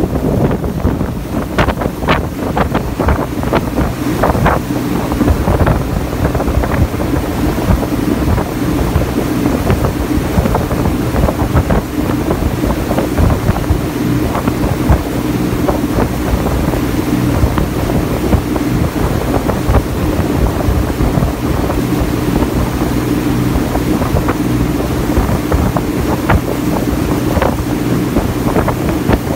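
Ferry's engine running steadily under way, with water rushing past the hull and wind on the microphone.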